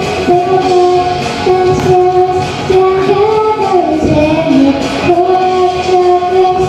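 A young girl singing, holding long steady notes that step up and down in pitch.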